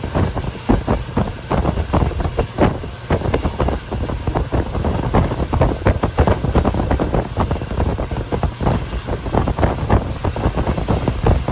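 Passenger express train running at speed: a steady low rumble with dense, irregular clattering of wheels on the track, and wind buffeting the microphone.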